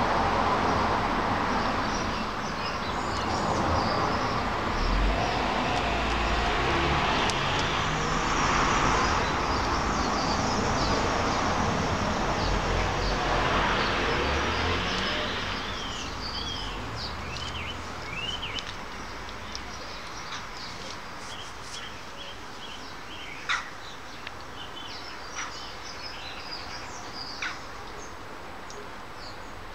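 Outdoor background: a broad rushing noise swells and fades through the first half, then small birds chirp in short rising and falling calls, with a few sharp clicks near the end.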